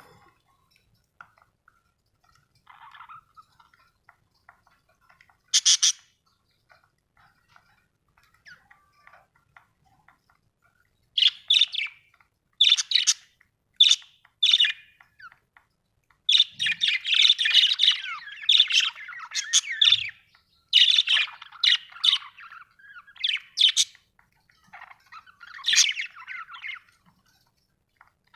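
Budgerigars chirping and chattering in quick, shrill bursts. A single sharp call comes about six seconds in, after soft, faint chatter. From about eleven seconds to near the end there is a long run of busy, overlapping calls.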